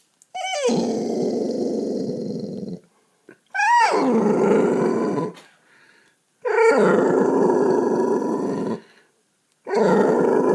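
A dog growling in four long, drawn-out growls of about two seconds each with short pauses between, each one opening with a brief whine that slides up and down in pitch.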